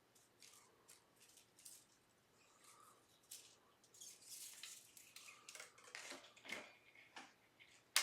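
Faint scattered clicks and scratchy rustles of hands working an electric guitar's strings and hardware during restringing, busier in the second half.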